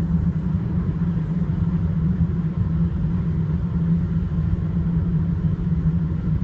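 Steady low rumble and hum of a car travelling at motorway speed: engine and tyre noise, unchanging throughout.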